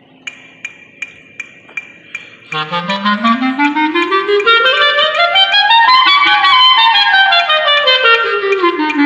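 A clarinet plays a fast scale, climbing about three octaves and coming straight back down, as a warm-up. A few soft, evenly spaced clicks come before the first note.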